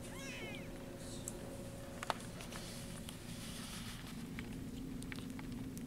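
A very young kitten gives a brief high-pitched mew near the start, then soft rustling and small clicks as kittens crawl about on a blanket, with one sharp click about two seconds in.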